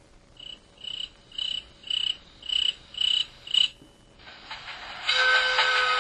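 MS340 mobile phone playing its built-in alert tones through its speaker: seven short, high beeps about twice a second, each louder than the last. About five seconds in, a louder, busier sound effect with several held tones starts.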